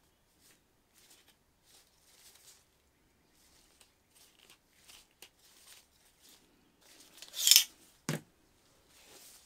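Metal clamp handled on a metal lightsaber hilt in gloved hands: faint rustling and small metal clicks, then near the end a short, louder metal scrape as the clamp comes off the hilt and a sharp knock as it is set down on the cardboard-covered bench.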